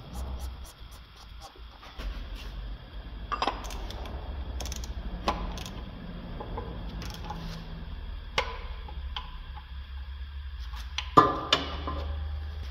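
Ratchet wrench on a long extension turning a car's oil filter housing cap, giving scattered metallic clicks and knocks, the loudest pair near the end, over a low steady hum.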